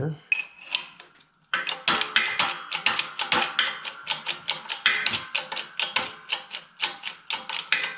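12-ton hydraulic bottle-jack shop press being pumped by its handle: quick, regular clicking, about four to five clicks a second, starting about a second and a half in, as the press pushes a wheel bearing into the steering knuckle.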